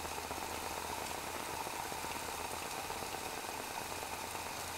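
Water in a pot simmering with a steady soft bubbling hiss, heated by a methanol soda-can stove whose flame is burning low as its fuel runs out.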